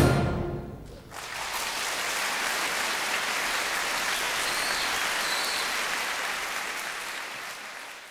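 The symphonic band's final chord dies away over about a second, then the audience applauds steadily, fading out near the end.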